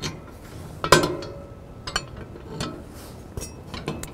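Steel wheelbarrow parts clinking and knocking together as the leg assembly is fitted onto the steel tray: a few sharp metallic clinks, the loudest about a second in with a short ring after it.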